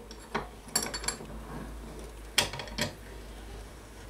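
Bench vise being worked to clamp a doubled thread: a handful of sharp metallic clicks and knocks from its handle and jaws, the loudest about two and a half seconds in.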